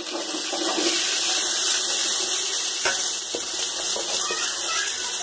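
Chopped onions sizzling steadily in hot oil and ghee in a large metal pot, just after going in, with a couple of light scrapes of a metal ladle about three seconds in.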